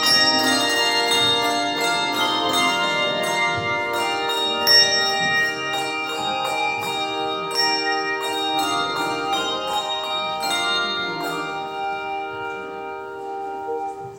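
A set of bells rung together, several pitches struck in a quick pattern and left ringing over one another. The strokes thin out later and the ringing fades toward the end.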